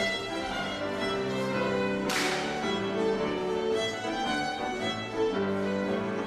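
A Scottish country dance band playing a dance tune: fiddles leading over cello and piano. A brief hiss cuts across the music about two seconds in.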